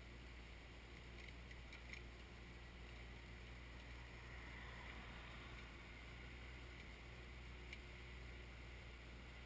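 Faint, steady low hum of a Kioti compact tractor's diesel engine working, with a car passing on the road swelling up about four to five seconds in, and a few faint clicks.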